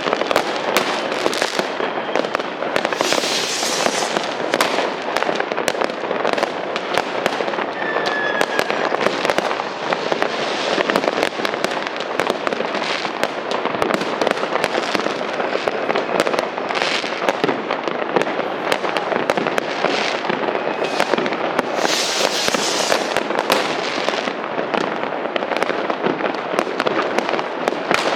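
A dense, unbroken barrage of New Year's Eve fireworks and firecrackers, with rapid overlapping bangs and crackling and no pause. A few faint whistling rockets can be heard. Bursts of hissing crackle come about three seconds in and again around twenty-two seconds.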